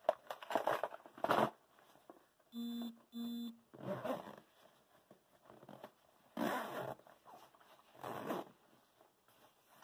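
Zippers on a 600D nylon fishing backpack being pulled, in several short strokes with pauses between them. About three seconds in there are two short steady humming tones, one right after the other.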